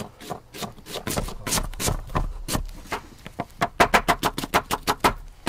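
Knife chopping an onion on a cutting board: a run of sharp strikes, coming quicker and more evenly in the second half.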